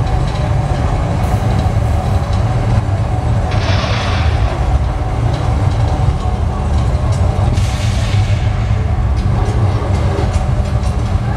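Deep, steady rumble, with short bursts of hiss about three and a half and seven and a half seconds in.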